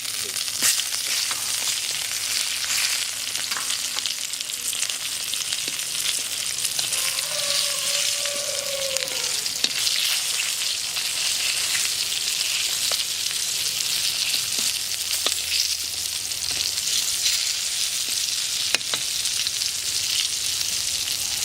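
Battered loach deep-frying in hot oil: a steady sizzle with scattered crackles and pops.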